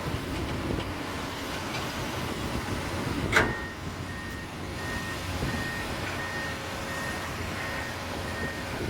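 Komatsu PC200 hydraulic excavator's diesel engine running steadily. A sharp clank comes about a third of the way in, and after it a warning alarm beeps repeatedly on one high pitch.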